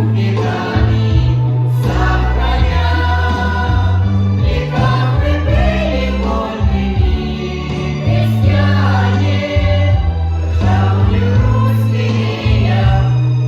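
Music: a choir singing wordless or unintelligible lines over instrumental accompaniment with a steady, sustained bass.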